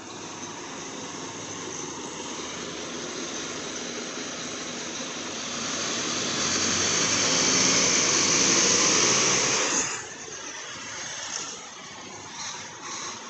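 Articulated Scania K320UA bus pulling away and driving past close by, its engine and running noise building to a loud peak and then falling away sharply about three-quarters of the way through.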